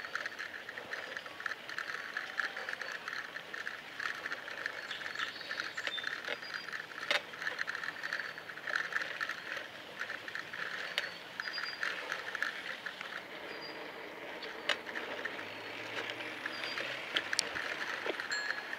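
Bicycle riding along: a steady rush with rapid small clicks, and short high chirps of birds here and there.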